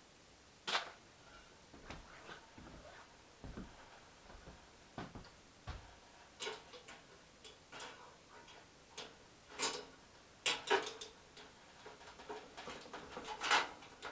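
Irregular light clicks and knocks of the stove's parts being handled and fitted, with a few sharper knocks about three quarters of the way through.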